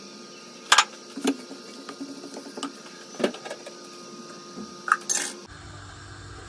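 Kitchen cooking sounds: scattered clinks and knocks of utensils against pots and dishes, with sharp taps about a second in and a short clatter near the end, over a faint steady hum.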